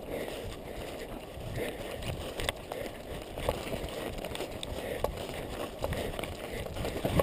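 A runner's footsteps through forest undergrowth, with blueberry shrubs and branches brushing past and the odd sharp snap of twigs.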